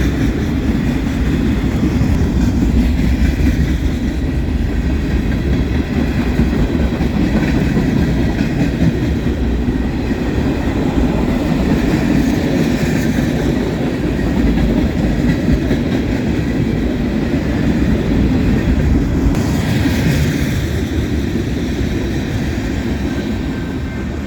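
Freight cars of a long train rolling past, a steady heavy rumble of steel wheels on the rails with clickety-clack over the joints.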